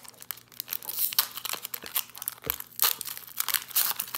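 Foil wrapper of a Pokémon trading card booster pack crinkling and tearing as it is ripped open by hand, a rapid run of sharp crackles.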